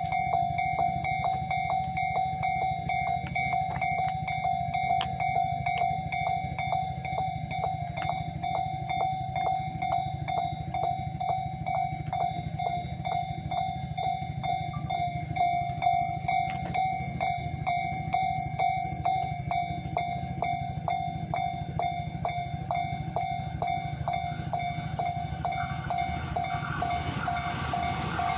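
Japanese railway level crossing warning bell ringing in a steady repeated beat over a low rumble. A rising rush of train noise joins it near the end.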